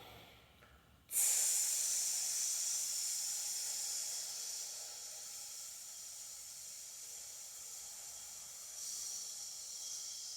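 A man's long hissing 'sss' exhale through the teeth, the lung sound of the Chinese-medicine healing sounds, starting about a second in and slowly fading, almost like a snake sound or a balloon deflating.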